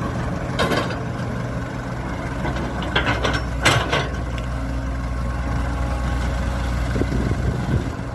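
Diesel engine of earthmoving machinery running steadily, with a few brief sharp sounds about a second, three seconds and three and a half seconds in.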